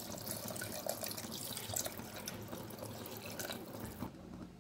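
Water poured from a vessel into a pressure cooker pan of sautéed vegetables, splashing steadily, then stopping about four seconds in.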